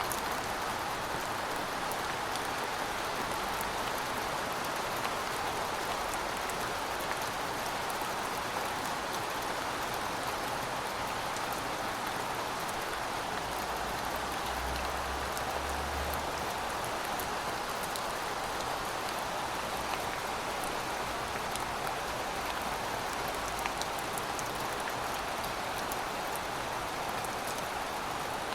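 Steady rain falling, an even hiss dotted with many small drop ticks. A brief low rumble comes about halfway through.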